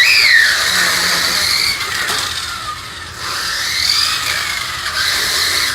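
Electric 1:16-scale 4WD RC drift car running, its motor and drivetrain whining and rising and falling in pitch as the throttle changes.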